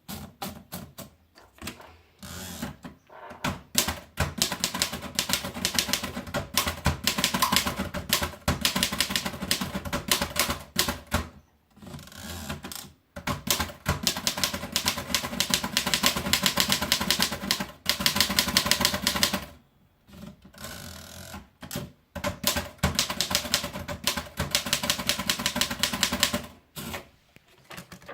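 Erika 5 TAB manual typewriter being typed on: quick runs of sharp key strikes, broken by a few short pauses.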